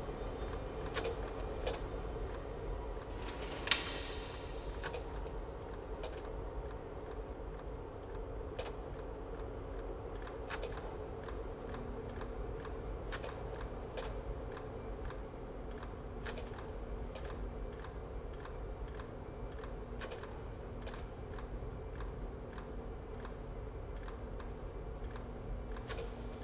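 Irregular sharp clicks and ticks over a steady low hum, with one louder click that rings briefly about four seconds in.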